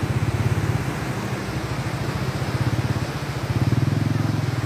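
A vehicle engine running close by with a fast, steady low pulsing that swells about three and a half seconds in.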